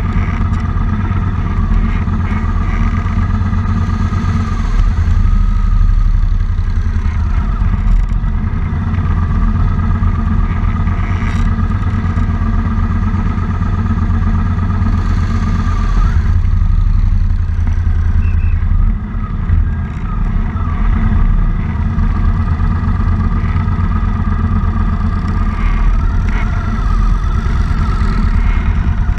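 Motorcycle engines idling and running at walking pace in slow traffic, a steady deep rumble with a thin wavering whine above it.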